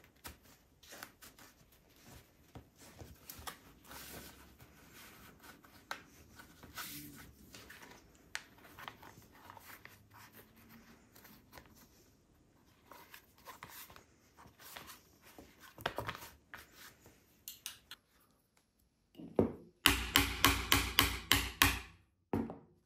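Hand work on leather: soft rubbing and light scattered clicks of tools and material. Near the end comes a quick run of about ten loud knocks, some four a second.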